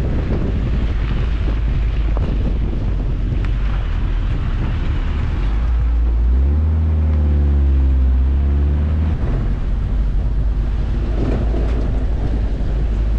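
Wind buffeting a microphone held out of a moving white minivan's side window, over the van's engine and tyres on a dirt road. About halfway through, a pitched engine drone dips and rises again for a couple of seconds.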